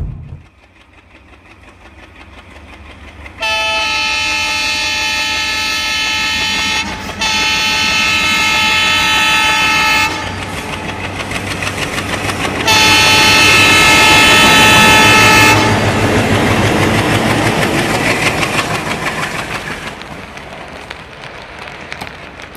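WDM3A diesel locomotive horn sounding two long blasts back to back, then a third after a short pause, over the running noise of a train. The running noise builds at the start and fades away over the last few seconds.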